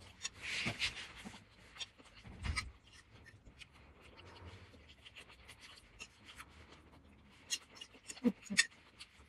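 Eating noises: a fork clicking and scraping against a plate, and noodles being slurped and chewed, as soft, scattered short clicks and brief rustling noises.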